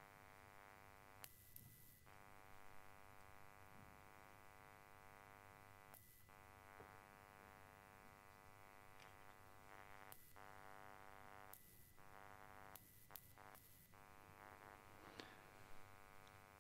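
Near silence with a faint steady electrical buzz of many overtones, which cuts out briefly several times.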